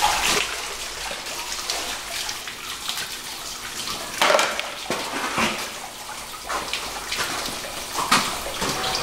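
Water running and splashing steadily from the spray bar of a spiral gold wheel, washing crushed ore as the wheel turns so the gold climbs the spiral and the lighter material washes out. A few louder sudden knocks or splashes come about four, five and eight seconds in.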